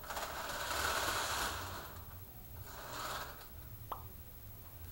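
HO model train running on the layout track with a rough scraping noise in two stretches and a sharp click near the end, a sound of trouble on the track that is traced to a small gap in the rails.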